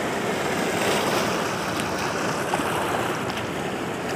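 Small sea waves washing steadily onto a seaweed-covered rocky shore.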